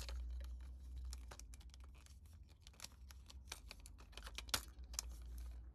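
Small hard-plastic toy parts handled and clicked together as a miniature toy blender's lid is fitted on: irregular light clicks and taps, with one sharper click about four and a half seconds in, over a low steady hum.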